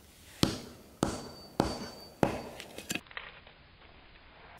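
Hewing hatchet smashing small pieces of bark against a wooden chopping block: four sharp blows about half a second apart, stopping about three seconds in, leaving a few faint ticks.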